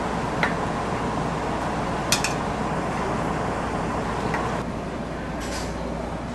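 A few light metallic clinks of a small stainless steel bowl and its utensil against a granite worktop as the bowl is handled and set aside, the sharpest about two seconds in, over steady background noise.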